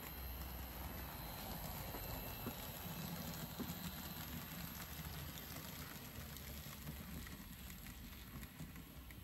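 Model N gauge Class 37 diesel and flask wagons running along the layout track: a steady low running noise with fine, irregular clicks of wheels over rail joints and pointwork, getting quieter in the second half.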